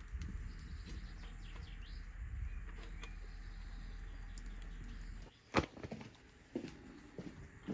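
Outdoor ambience: faint short bird chirps over a steady low rumble, which cuts off suddenly about five seconds in. A single sharp click comes just after, then a few soft small knocks.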